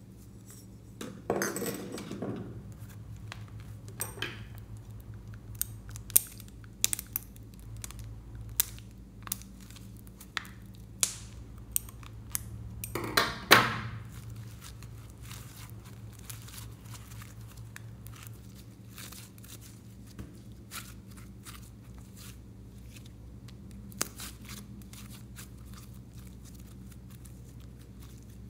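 Hands squeezing a mesh squishy stress ball, then kneading and stretching soft red slime. Scattered sharp clicks and pops and a few longer crackly bursts, the loudest about 13 seconds in, give way to quieter handling over a steady low hum.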